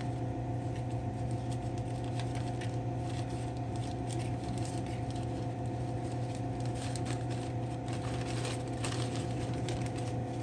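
Steady low hum, with faint scattered clicks and light rustling from small parts and tools being handled.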